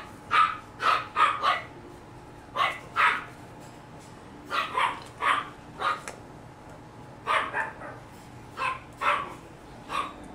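Havanese puppy barking: short, high-pitched yaps, about sixteen of them in groups of two to four with short pauses between.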